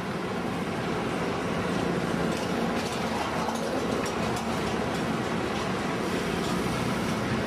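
Steady street traffic noise with the low drone of a running vehicle engine.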